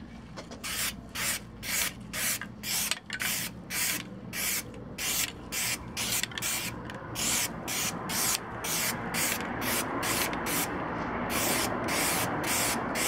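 Aerosol can of high-build primer spraying in short hissing bursts, about two or three a second, as it is swept in passes over a steel fender; the bursts run closer together towards the end.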